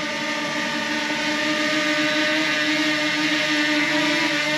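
DJI Mini 2 quadcopter hovering just above the ground, its four propellers giving a steady buzzing whine at an even pitch, a little louder after a second or so.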